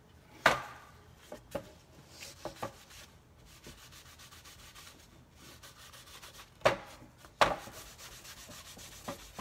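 Wooden craft tray being rubbed and wiped by hand with a crumpled wipe, taking off excess dark antique wax. A few sharp wooden knocks as the tray is handled: one about half a second in, and two loudest ones close together about seven seconds in.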